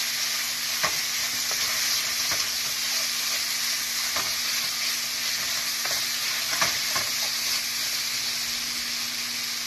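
Chicken pieces sizzling in hot oil in a small frying pan, with a few scattered clicks of a utensil against the pan as the pieces are separated.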